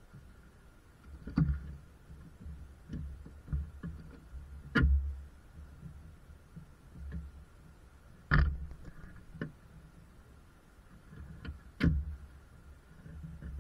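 Hands and tools knocking on parts in a car's engine bay: scattered clunks with low thuds, about four sharp knocks standing out a few seconds apart.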